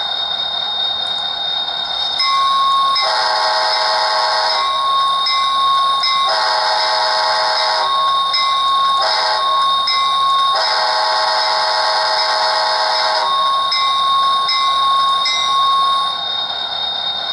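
Sound decoder in an HO-scale Metra MP36 model locomotive playing a diesel air horn through its small speaker in the grade-crossing pattern: two long blasts, a short one and a final long one. A steady high tone runs underneath from about two seconds in until near the end.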